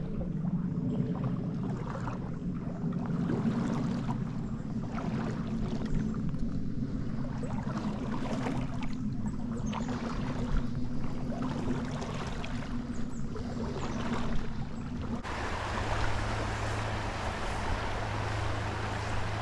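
Creek water running steadily, with scattered small splashes; about fifteen seconds in the sound changes abruptly to a brighter, hissier rush.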